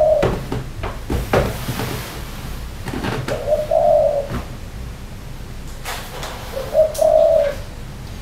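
Spotted dove cooing: a short note, then a longer one, the phrase repeated about every three and a half seconds. A few short knocks fall between the calls.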